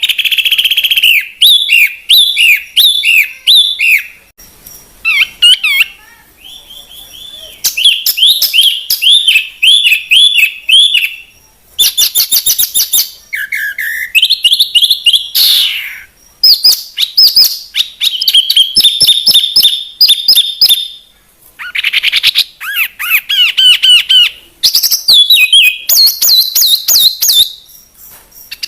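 Songbird singing in a birdsong training recording: a loud, fast, varied string of chirps, trills and whistled glides, in bursts with short pauses between phrases.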